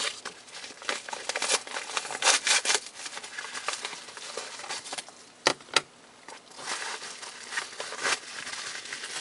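Mail packaging being opened by hand: paper or plastic crinkling and tearing in bursts, with two sharp clicks about five and a half seconds in.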